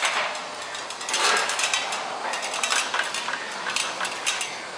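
Light metallic clinks and taps, many in quick succession, as metal parts and tools are handled, over a steady hiss.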